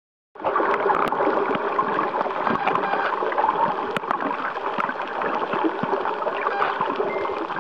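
Underwater sound among spinner dolphins: a steady wash of water noise thick with crackling clicks, and one short high whistle about seven seconds in.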